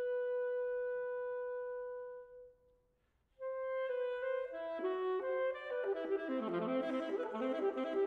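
Alto saxophone holding a long note that dies away, a moment of silence about three seconds in, then the saxophone comes back in with a flurry of quick notes over piano accompaniment.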